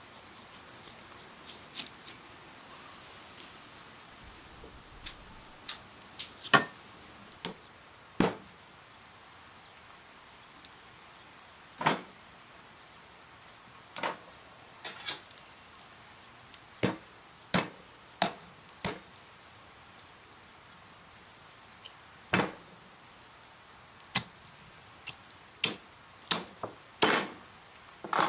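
A knife cutting raw lamb on a wooden cutting board: sharp knocks and clicks of the blade and the meat against the board, irregular and spaced a second or so apart, over a faint steady hiss.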